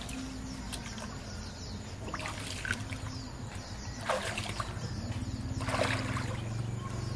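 Water splashing as a person wades step by step through shallow muddy water, with splashes about two, four and six seconds in, over a low steady drone.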